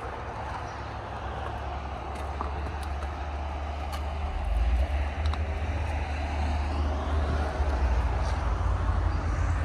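Caterpillar D3B dozer's diesel engine idling with a steady low rumble, getting louder about halfway through.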